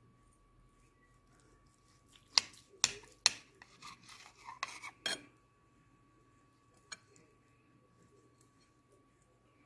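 A kitchen knife clicking and scraping against a glass plate as it cuts through a mound of soft yogurt cheese: three sharp clicks about two seconds in, then a run of lighter clicks and scrapes, and one more click near the end.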